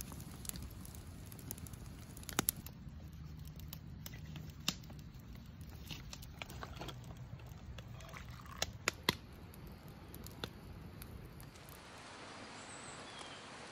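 Wood campfire crackling with a few sharp pops, then light clicks and rustling as a drink-mix packet is emptied into plastic and metal camp cups, over a low steady background rumble.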